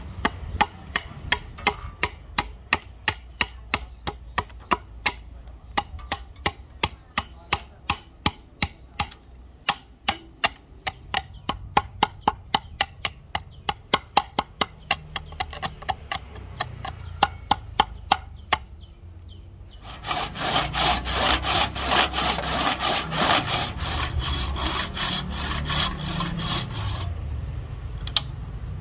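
A machete chops into a rosewood handle blank with sharp blows about two a second, knocking out the waste between saw kerfs, for about eighteen seconds. After a short pause, a handsaw cuts the wood in quick, rasping strokes for about seven seconds.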